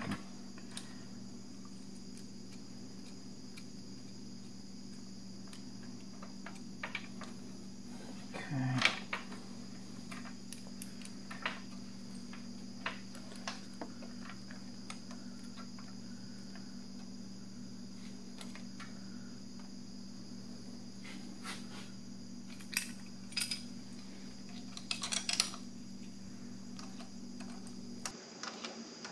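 Scattered metallic clicks and clinks of hand tools, bolts and a steel bracket being handled and fitted, a few at a time, bunching about a third of the way in and again near the end. A steady low hum and a faint high steady tone run underneath.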